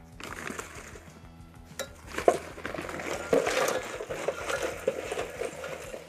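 Lumps of charcoal being tipped onto a thin metal plate, clattering and clinking irregularly, busiest from about two seconds in, over steady background music.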